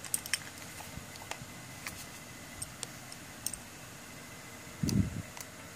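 Light scattered clicks and ticks from handling a homemade bottle-bodied mini grinder and a thin metal tool against its grinding wheel, with one low thump near the end.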